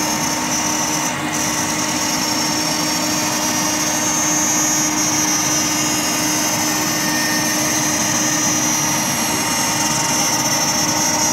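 CNC router spindle cutting acrylic sheet, giving a steady high whine, over the steady rush of the vacuum dust extraction drawing through the hose on the dust shoe.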